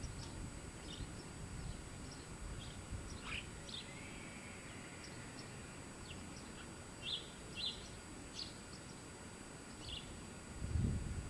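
Small birds chirping: scattered short, high calls, a few slightly louder pairs past the middle, over a low outdoor rumble of wind that swells near the end.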